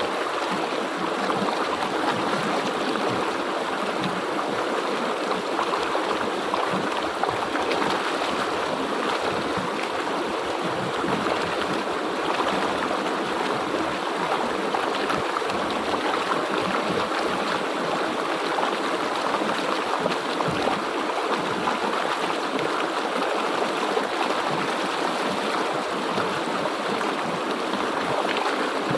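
River water flowing steadily, an even unbroken rush of water.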